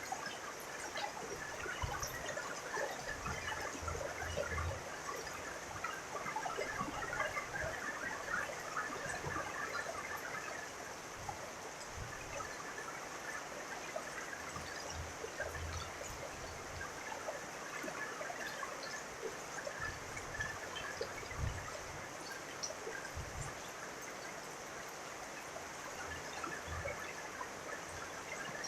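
Rain falling steadily, with many small drops and trickling runoff water, and short low thumps every few seconds.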